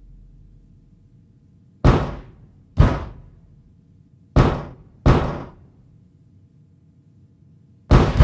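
Loud, echoing footsteps: about six single heavy steps falling in pairs, with a pause between each pair and the last steps coming quicker near the end.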